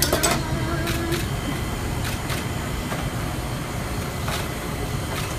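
Steady low rumble of a commercial kitchen, with scattered light clicks and clinks of tongs and a brush against a metal sheet pan as fried chicken wings are glazed.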